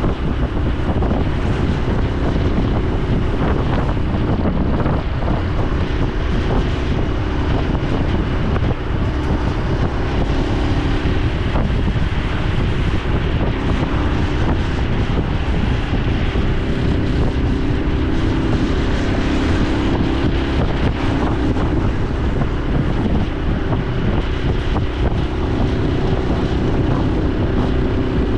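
Honda Super Cub C125's 125 cc single-cylinder four-stroke engine and exhaust running on the move, its pitch shifting a little with the throttle, under steady wind rushing over the microphone.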